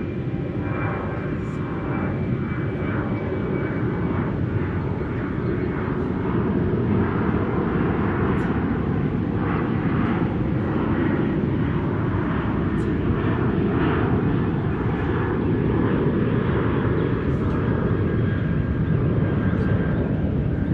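An airplane flying over: a steady rumble that grows a little louder partway through, with a faint tone that slowly sinks in pitch.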